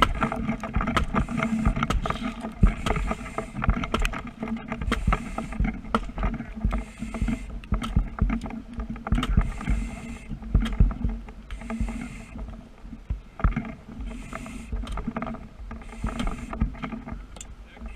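A steady engine hum with many irregular knocks and crackles and short bursts of hissing.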